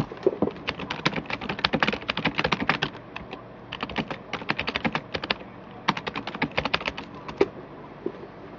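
Rapid, irregular clicks and taps of a cardboard trading-card box being handled and opened, some coming in quick runs of several a second.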